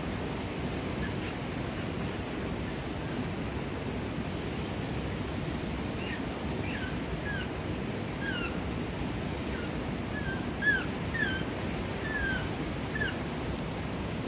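A dozen or so short, high, falling calls from Japanese macaques (snow monkeys), coming from about six seconds in, over a steady hiss.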